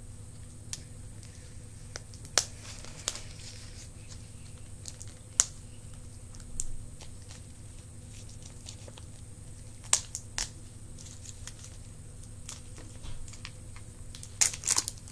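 Candy wrapper being handled, crinkled and picked open, in scattered sharp crackles and small tearing snaps, with a quick run of them near the end.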